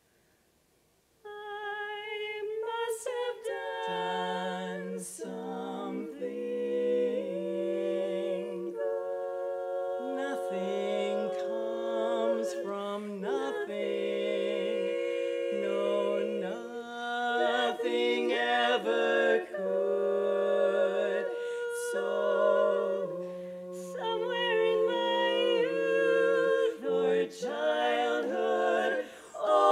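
Women's barbershop quartet singing a cappella in close four-part harmony, holding and shifting sustained chords. After about a second of silence, a single voice enters, and the lower parts join within a few seconds.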